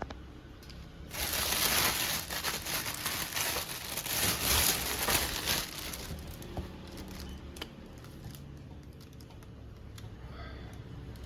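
Food packaging crinkling and rustling as it is handled and opened, loudest from about a second in for about five seconds, then softer handling with a few light clicks.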